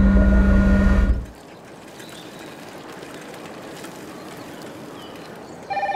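A loud, low vehicle rumble with a steady hum cuts off suddenly about a second in, leaving faint outdoor ambience. Near the end a telephone starts ringing with a pulsing electronic trill.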